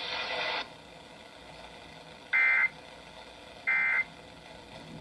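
NOAA Weather Radio end-of-message code (SAME 'NNNN'): short, identical electronic data bursts about 1.3 s apart, the third starting just at the end, marking the close of the severe thunderstorm warning, heard through the radio's speaker. A faint hiss stops about half a second in.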